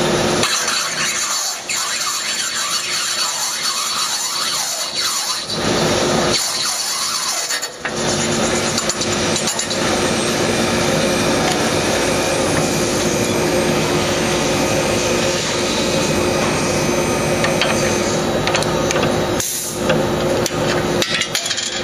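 Electric drill running with a steady motor hum as its twist bit bores the over-tightened oil pressure switch's pipe-thread hole oversize in a magnesium Volkswagen engine case, cutting chips. The cutting noise grows fuller about 8 seconds in, and there is a brief knock near the end.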